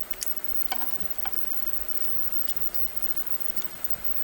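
A few light metallic clicks and ticks, irregularly spaced, from a hand tool turning a screw extractor on a broken exhaust manifold stud in a cylinder head.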